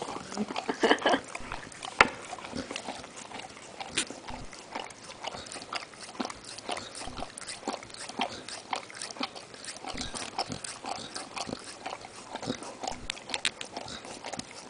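Bernese mountain dog licking frozen yogurt out of a cup held to his mouth: irregular wet licking clicks, several a second, with one sharper click about two seconds in.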